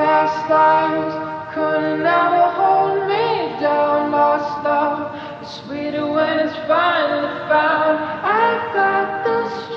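Background music of singing voices: several sung notes layered, choir-like, moving from note to note about every second.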